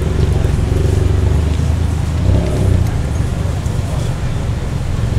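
City street ambience: the low rumble of a motor vehicle running close by, with people talking.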